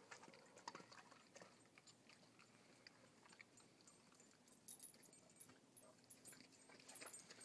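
Faint sounds of an Airedale terrier eating raw meat from a frying pan: scattered small clicks and chewing noises.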